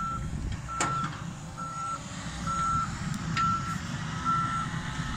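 Backup alarm on heavy earthmoving equipment beeping at one steady pitch, about once a second, over the low rumble of diesel engines.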